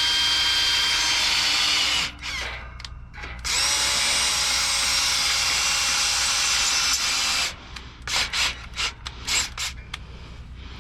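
Electric drill boring into thick steel with a freshly sharpened twist bit. It runs steadily, pauses about 2 s in, runs again, and then near the end comes in short stop-start bursts as the bit works at the last of the metal before breaking through.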